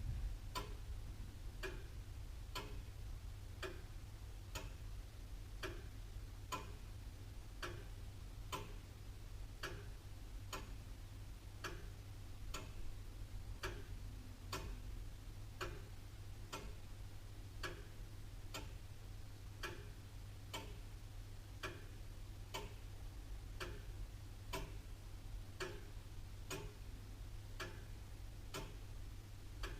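Antique William Holliwell of Liverpool clock ticking steadily, about three ticks every two seconds.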